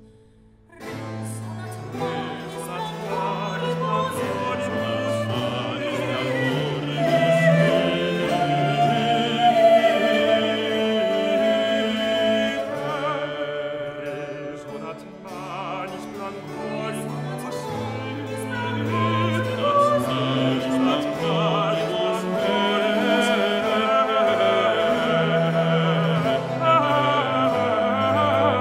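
A Baroque vocal trio sings a chorus for three voices, accompanied by a continuo group of theorbo, harp, viola da gamba and keyboard. The music starts about a second in, after a brief pause.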